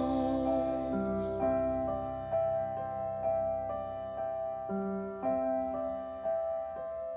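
Background music: a slow, soft piano melody, one struck note about every half second. It takes over from held tones that fade about a second in, and there is a short high swish at the changeover.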